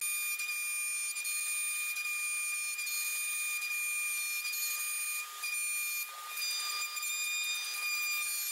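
CNC router milling a pocket: a steady high-pitched whine with a couple of short breaks about five and six seconds in.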